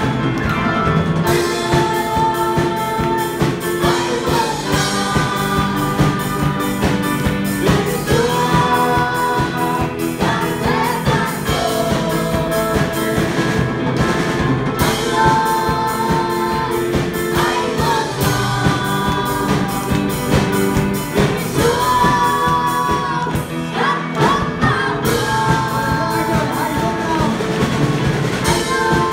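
Vietnamese Protestant hymn sung live by a woman and a man into microphones, over a band with drum kit and electric guitar.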